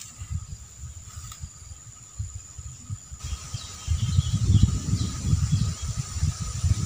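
Wind buffeting the microphone in gusts, growing much heavier about four seconds in, over a steady high-pitched drone of insects.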